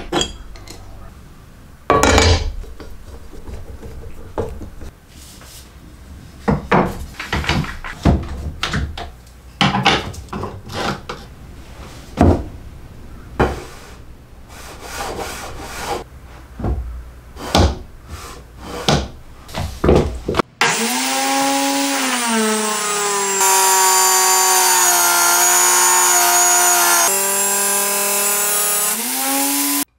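Knocks and clicks of an angle grinder and sanding-drum attachment being fitted and clamped in place. About two-thirds through, the angle grinder switches on and runs as a drum sander with a steady motor whine. The pitch drops when wood is pressed against the drum and rises again near the end as the load comes off.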